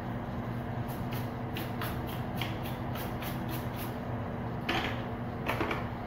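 Quick, short scratchy strokes of a hair brush across short hair, about three a second, then two louder strokes near the end, over a steady electrical fan hum.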